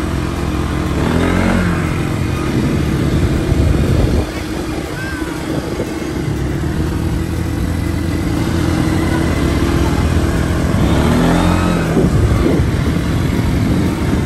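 A motor vehicle engine running, its pitch rising and falling a couple of times.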